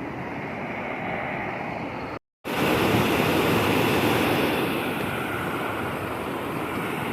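Steady rushing of river water over a waterfall. The sound cuts out briefly about two seconds in, then comes back louder and brighter.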